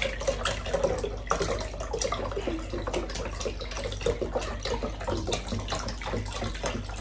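A litre of milk pouring in a steady splashing stream into the egg-and-sugar mixture for blini batter.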